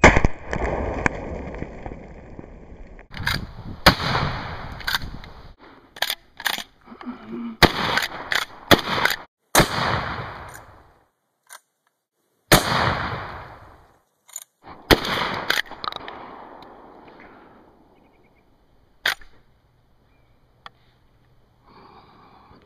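A series of 12-gauge shotgun blasts from a Norinco Model 87, a replica of the Winchester 1887 lever-action shotgun. About half a dozen loud shots each trail off in a long echo, with shorter sharp cracks and clicks between them. The shooting stops after about 16 seconds, and one lone crack follows a few seconds later.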